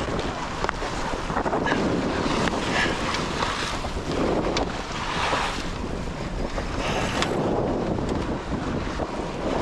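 Wind buffeting the microphone and water rushing along the hull of a C&C 27 sailboat under sail, swelling and easing, with a few faint knocks.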